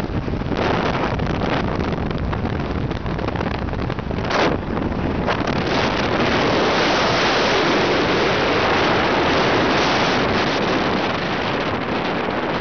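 Wind rushing and buffeting on the microphone of a phone held out of a moving car's window, with a few short gusts early on and strongest in the middle stretch.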